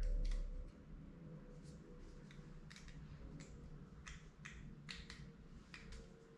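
Faint, irregular light clicks and taps of small parts being handled: a plastic choke rod being fitted into a replacement small-engine carburetor by hand.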